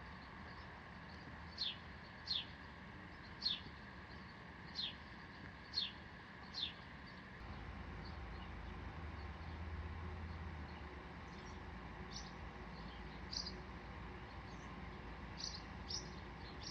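Faint bird chirping: a series of short, high, downward-sliding notes about once a second, then fainter, shorter notes. A low rumble comes in about seven seconds in.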